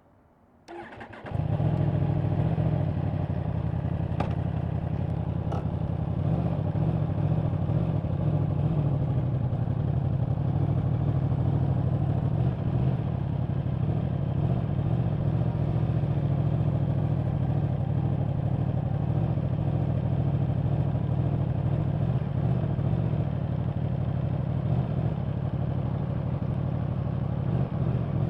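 A 2024 Yamaha R1's crossplane inline-four on the stock exhaust starts up about a second in, then idles steadily.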